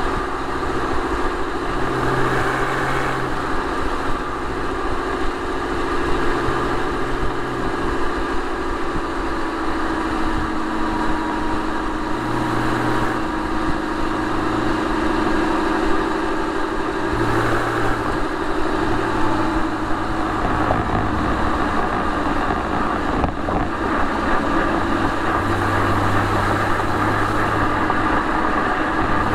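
Exhaust and rear-mounted flat-six engine of a 2006 Porsche 911 Carrera 4 cruising at steady highway speed. A continuous drone whose low note shifts a little now and then, over steady road and wind noise.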